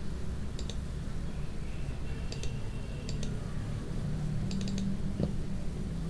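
A few scattered computer mouse clicks over a low steady background hum, with a quick cluster of clicks about four and a half seconds in.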